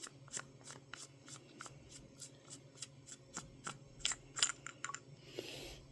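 Faint, evenly spaced light clicks, about three a second, with a few louder ticks past the middle and a brief soft rustle near the end.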